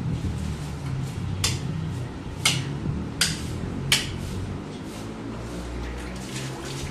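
Butcher's knife working through a hanging goat carcass to take off a large cut, with four sharp clicks of blade on bone and joint over about two and a half seconds. A low steady hum runs underneath.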